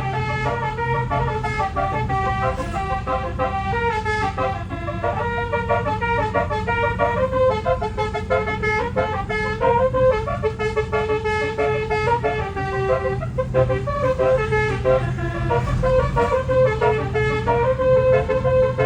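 Twelve-trumpet telolet air horn playing a tune, its notes stepping up and down every fraction of a second, over a steady low hum.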